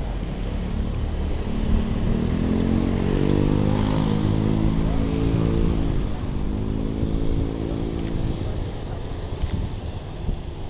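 A motorcycle passing close by on the street: its engine note swells from about two seconds in and fades away near the end, over steady traffic rumble.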